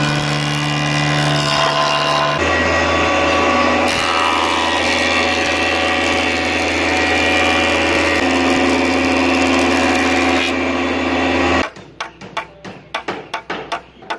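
Wood planer running steadily as boards are fed through it, a loud drone that changes pitch about two seconds in. Near the end the machine stops and a quick run of about a dozen sharp hammer taps follows, nailing a thin wooden strip onto a batten.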